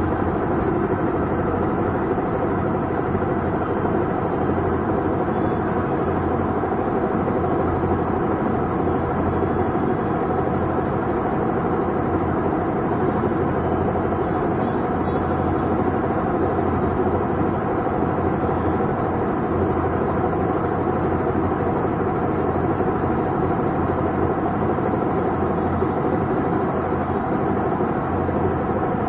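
Whirlpool Stainwash 6.2 kg top-loading washing machine on its spin cycle, a steady mechanical drone from the drive: the sound of a faulty gearbox and two worn drum bearings.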